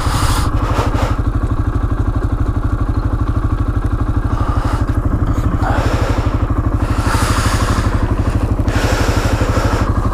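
625 cc CF ATV engine idling steadily while the quad stands still. There are bursts of rustling as gloved hands handle a bag on the front rack close to the microphone.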